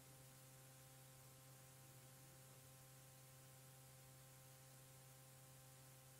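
Near silence: a faint steady electrical hum with light hiss from a cassette-tape transfer after the music has ended.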